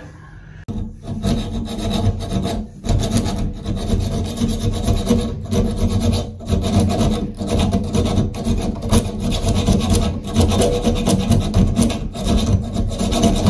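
A hacksaw blade sawing by hand through the seized bonnet nut of an old Delta shower valve, in steady back-and-forth strokes about one a second. The nut is being cut off because it will not turn.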